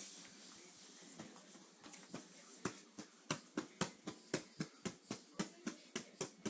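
A quick, even run of sharp taps, about four a second, starting about two and a half seconds in after a stretch of faint room sound.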